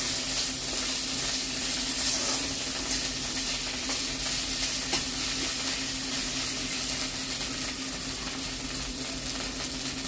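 Ginger, cumin and chilli paste with turmeric sizzling in hot oil in a metal kadai, stirred and scraped with a metal spatula, giving faint scattered clicks. A steady low hum runs underneath.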